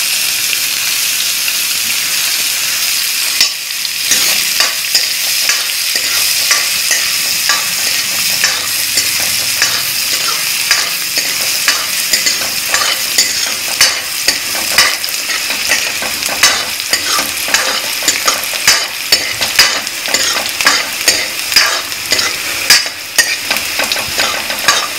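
Chopped onions and curry leaves sizzling in hot oil in a metal kadhai, with a metal ladle scraping and clicking against the pan as they are stirred. The stirring clicks come more often in the second half.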